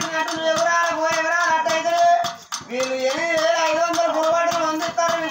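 Oggu Katha folk music: a voice singing a held, wavering melody over a sustained harmonium-like tone, with a quick, even percussion beat of clicks throughout. The music breaks briefly about halfway through.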